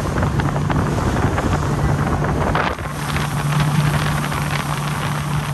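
Outboard motor on a small motorboat running steadily at speed, with wind buffeting the microphone and water rushing past the hull and wake.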